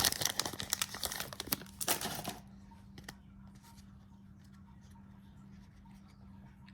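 A basketball trading card pack's wrapper being torn open and crinkled for about two and a half seconds, then only a few faint ticks as the cards are handled.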